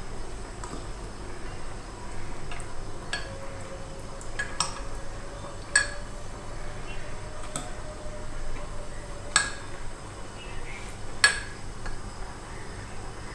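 A steel spoon clinks and scrapes against a glass dish while spreading thick apricot pudding, with a sharp clink every couple of seconds.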